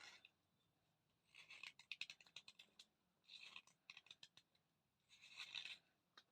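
Chandni brand thick slate pencil crunching in four separate bursts of crisp crackling.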